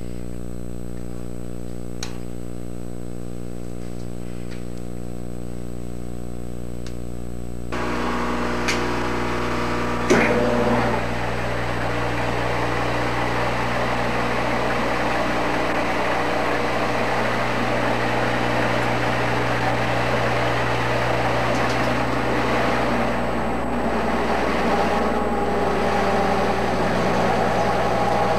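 Engine lathe running with its chuck and workpiece spinning, a steady hum. About eight seconds in it grows louder, and from about ten seconds in a large twist drill held in the tailstock cuts into the end of the rotating workpiece, adding a rougher drilling noise.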